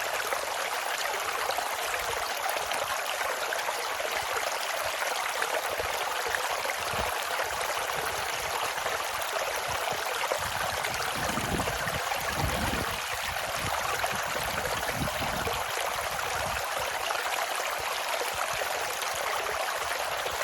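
Mountain valley stream flowing in a steady, even rush of water, with a few low rumbles about halfway through.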